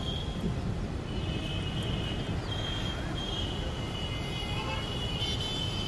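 Steady outdoor rumble of wind and distant city traffic, with thin, high chirping tones coming and going.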